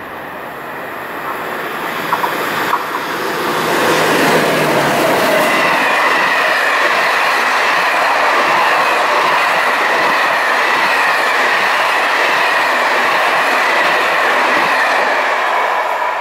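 A train of SNCF Corail passenger coaches running past on the rails: a dense rush of wheels on track that builds over the first few seconds and then holds steady. A few clicks come early, and a steady high ringing tone sits over the rush.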